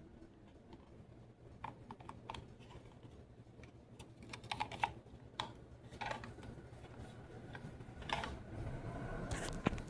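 Encon Elite ceiling fan running with a low steady hum, with irregular light clicks and ticks over it.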